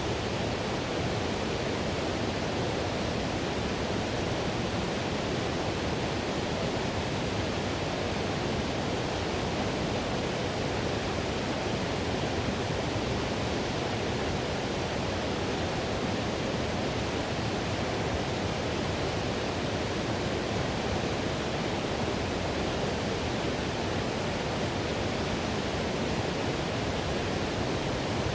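Whitewater river rushing: a steady, even roar of water with no breaks or changes.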